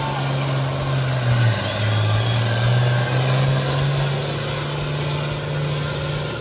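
International Harvester 66-series pulling tractor's engine running hard under load as it drags the weight-transfer sled. Its note dips about a second and a half in and then climbs back.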